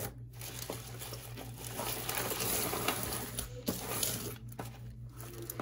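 Plastic bag rustling and crinkling, with small clicks of jewelry pieces knocking together, as a hand rummages through it and pulls items out onto a table.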